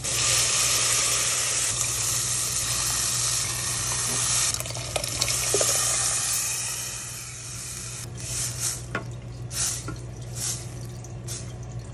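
Cooked mung bean soup poured from a bowl into a hot pan of sautéed aromatics, with a steady sizzle and splash that fades after about seven seconds. Then a wooden spatula stirs the soup, scraping against the pan several times.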